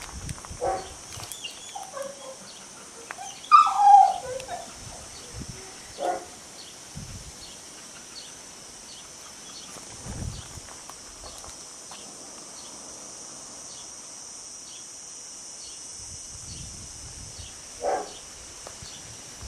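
Dogs barking and yelping now and then: a few short barks, the loudest run of yelps about four seconds in, then single barks around six seconds and near the end, over a steady high hiss.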